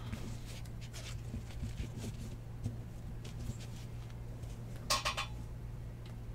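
Quiet room with a steady low hum, faint clicks of trading cards being handled, and a brief noise about five seconds in.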